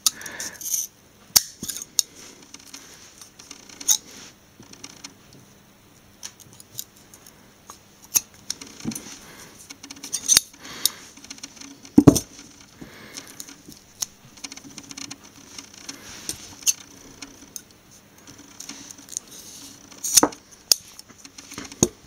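Scissors snipping away the white fibrous strain-relief filler inside a speaker cable: scattered sharp snips and metallic clicks with quiet handling rustle between them. The loudest click comes about halfway through.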